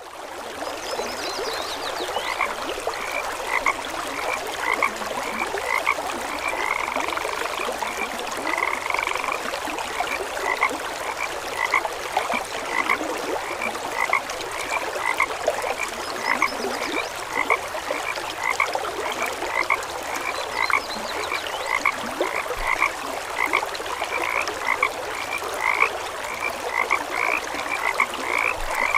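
Frogs calling: a continuous chorus of short, repeated croaks at two pitches, about two to three a second, over a steady background hiss of more distant calling.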